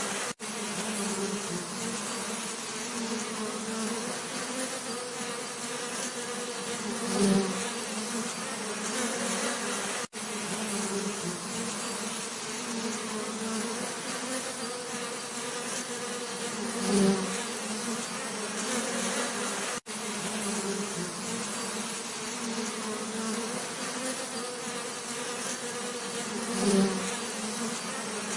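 Bees buzzing steadily. About every ten seconds the buzz swells louder for a moment, and there are short cut-outs in between.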